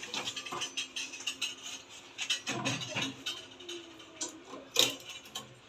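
Scattered light clicks and knocks of things being handled, with a sharper, louder knock near the end.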